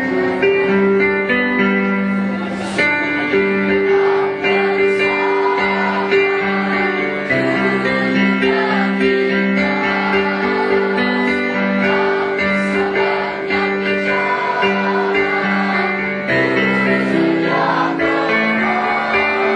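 School choir singing in parts with piano accompaniment, holding long sustained notes.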